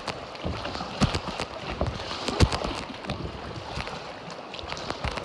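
Water swishing and lapping around an inflatable river raft, with a few scattered sharp knocks and thumps, the loudest about two and a half seconds in.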